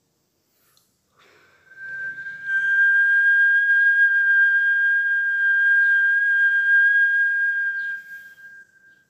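A person whistling one long, steady, high note. It begins with a breathy start about a second in and fades out near the end.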